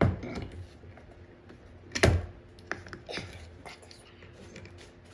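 Hammer striking nails into wood in a few uneven blows, the loudest about two seconds in, followed by lighter taps.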